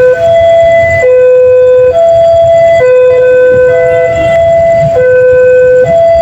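Railway level-crossing warning siren sounding a two-tone hi-lo alarm, switching between two steady pitches about once a second.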